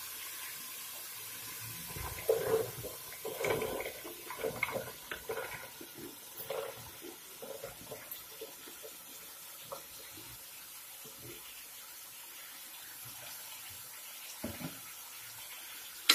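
Diced kaddu (gourd) pieces tipped from a plastic bowl into a pot of frying masala: a run of soft thumps and rustles from about two to seven seconds in, over a steady hiss. Then a few single knocks of a wooden spoon against the aluminium pot.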